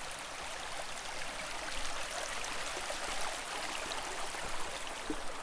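Shallow mountain creek running over rocks: a steady rush of flowing water.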